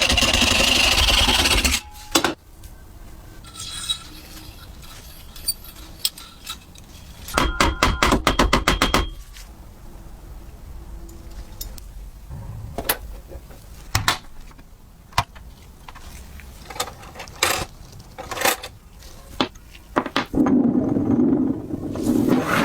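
Small metal parts of a tinplate toy clinking, tapping and scraping during restoration work, with a rapid run of clicks about eight seconds in. A louder, noisier scraping or rushing sound opens the stretch and comes back near the end.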